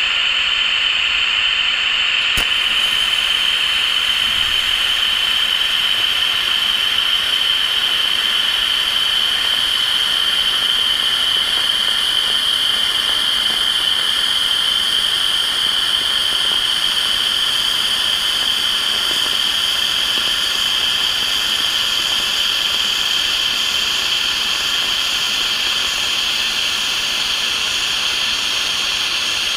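TIG welding arc from a Sherman DigiMIG 200 inverter welder in lift-TIG mode, burning steadily along a steel seam without filler rod: a constant hiss with a steady high whine.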